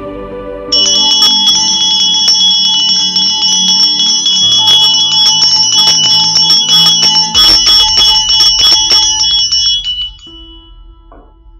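Brass hand bell shaken rapidly and continuously, its clapper striking many times a second; it starts under a second in and stops about ten seconds in, ringing out briefly. Soft music plays underneath.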